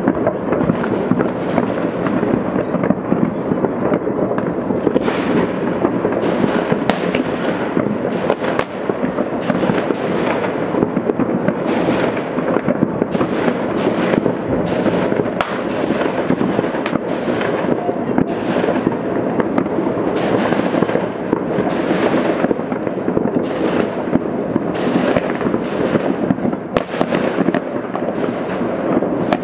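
Many fireworks and firecrackers going off across a city at once: a continuous rumbling crackle with sharp bangs about once a second or more, each followed by a fading echo.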